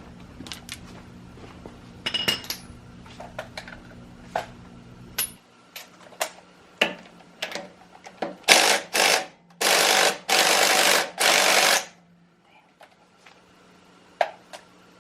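Metal tools clinking and clicking, then an impact wrench fired in a few short bursts followed by two runs of about a second each, on the wheel lug nuts.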